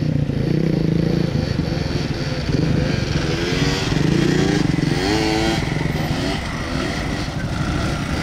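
Three-wheeled ATV engine revving up and down as the rider holds a wheelie, its pitch rising and falling several times with throttle changes.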